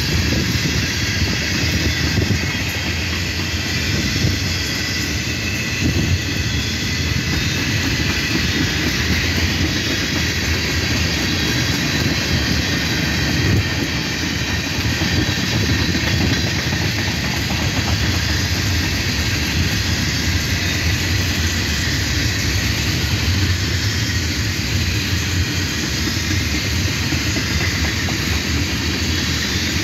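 Union Pacific freight train's tank cars rolling past close by: a steady rumble of steel wheels on rail with a hiss above it, and a few louder clacks.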